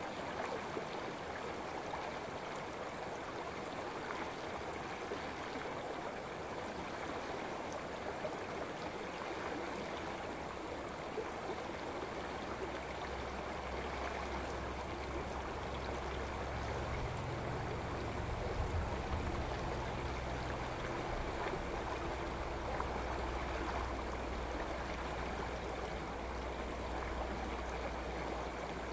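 Shallow forest stream running over a rocky bed: a steady rush and babble of water. About halfway through, a low rumble joins underneath and stays.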